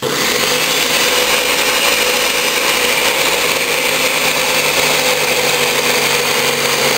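Ninja Kitchen System 1200 blender switching on at its Blend setting and running steadily, its blades chopping frozen fruit and vegetables with a little water. The motor comes on suddenly at full speed and holds a steady pitch.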